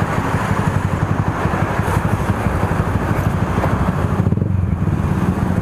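Motorcycle with an aftermarket muffler idling steadily in neutral, a deep, even exhaust pulse.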